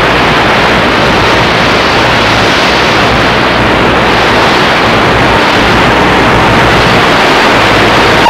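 Loud, steady wall of hiss-like electronic noise with no tune or beat, a harsh-noise passage in an electronic noise-music track.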